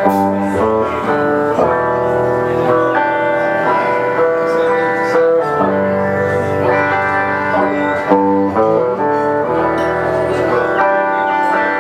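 A live band playing, with guitar and held chords that change every second or so.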